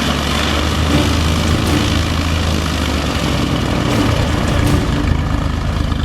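Vintage light aircraft's piston engine and propeller running steadily at low power, idling or taxiing.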